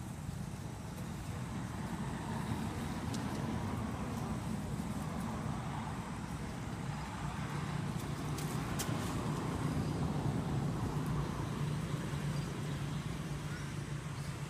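Road traffic running steadily, a low engine hum that swells gradually to its loudest about ten seconds in.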